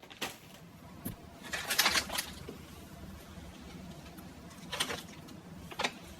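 A few short crinkles of a plastic snack bag being handled, the loudest about two seconds in, over a faint low background.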